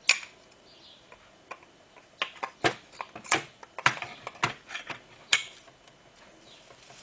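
Sharp metal clicks and clinks, about eight spread unevenly, as a Willys engine piston is fitted onto its connecting rod and the steel wrist pin is slid through. The rod's small end is held open by a steel wedge.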